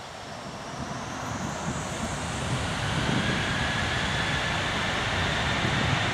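Jet airliner engines running, with a turbine whine that rises in pitch as the sound grows louder.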